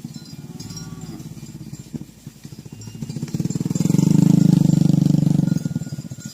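A small engine running with a fast, even pulse, swelling to its loudest about four seconds in and easing off near the end, like a motorbike passing by.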